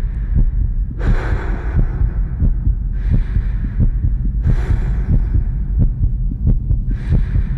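Dramatic underscore of a fast, deep heartbeat-like throbbing over a low hum, with swells of hissing noise about every two seconds.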